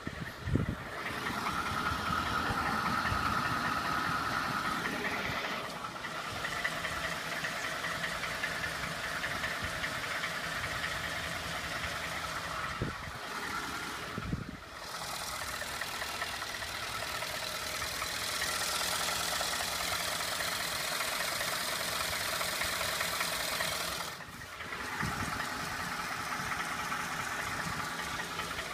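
2012 Ford F-150's 5.0 V8 engine running steadily with a repeating knock, which the owner takes for engine knock. The level dips briefly a few times.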